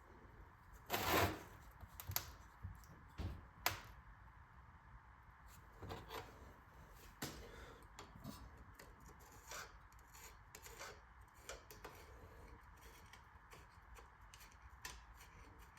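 A hand tool scraping and clicking lightly against rusty metal inside a small engine, pushing surface rust and debris away from the piston. The sounds are short and irregular, the loudest scrape about a second in.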